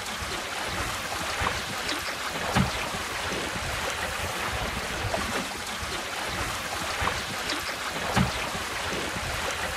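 Water lapping and splashing against the hull of a small sailboat under way in a light breeze, with wind noise on the microphone. Small splashes stand out about two and a half seconds in and again near the end.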